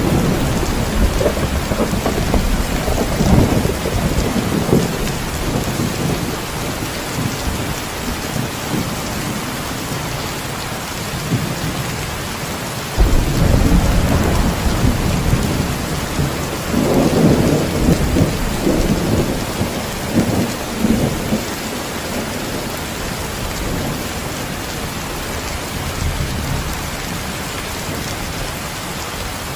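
Heavy, steady rain with rolling thunder: a rumble for the first few seconds, then a sudden crack of thunder about 13 seconds in that rolls on for several seconds before fading back into the rain.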